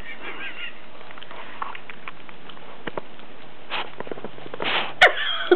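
Miniature pinscher and Cairn terrier mix puppies scuffling in a blanket: soft fabric rustling and scattered light clicks, growing busier near the end with a sharp click about five seconds in. A short high-pitched wavering sound at the very start.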